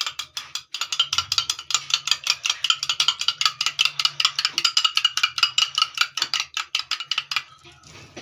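A metal spoon clinking rapidly against a small glass bowl as a raw egg is beaten, about seven or eight ringing clinks a second. The clinking stops near the end.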